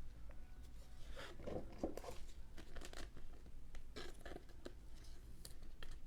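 Trading cards and their plastic packaging being handled: faint, irregular rustling, crinkling and light taps.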